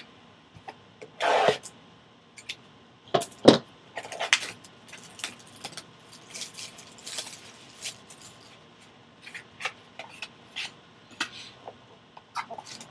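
Plastic shrink-wrap crinkling and tearing as a sealed cardboard trading-card box is unwrapped and opened by hand, with irregular clicks and scrapes of the box being handled. There is a loud half-second rip just over a second in and a sharp click about three and a half seconds in.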